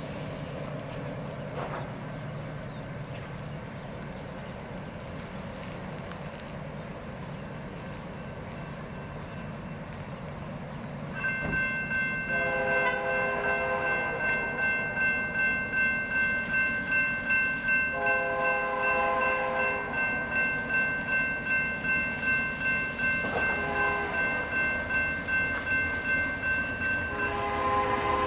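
Grade-crossing warning bell ringing about twice a second, starting about 11 seconds in, while the approaching CN GE C44-9W locomotive sounds its multi-chime horn in the crossing pattern: long, long, short, long.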